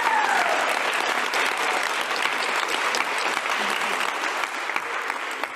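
Audience applauding: dense clapping from many hands that slowly dies down toward the end.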